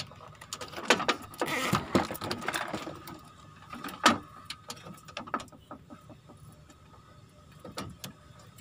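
Plastic wiring connectors of a power-window relay being handled and pushed together: rustling and small clicks, with one sharp snap about four seconds in.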